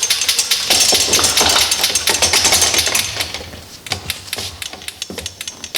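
Winder of a Mk10 oil sampling gauge being cranked to reel the sampler tape back up through its wiper, giving rapid clicking. The clicking is loud for about four seconds, then turns quieter and sparser.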